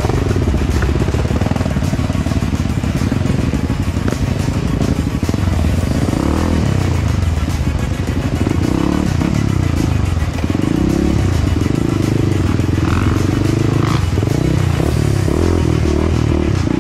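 Dirt bike engine running hard on a trail, its pitch rising and falling again and again with the throttle and gear changes, with scattered clattering knocks.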